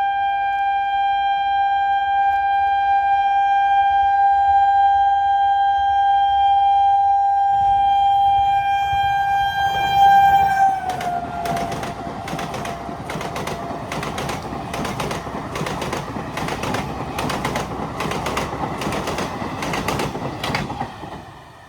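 An Indian Railways EMU train's horn held in one long steady blast, its pitch dropping as the train passes. The horn gives way to the rush of the passing train, with the wheels clattering over rail joints in a regular beat of roughly one and a half clicks a second, until the sound stops abruptly near the end.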